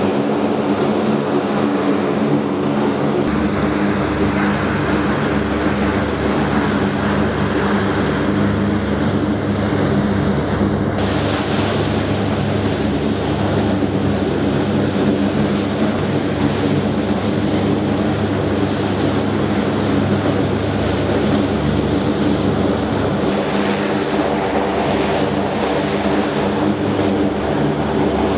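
Heavy military aircraft engines running: a loud, steady turbine drone with several low hum lines under a dense hiss. The higher hiss shifts about three and again about eleven seconds in.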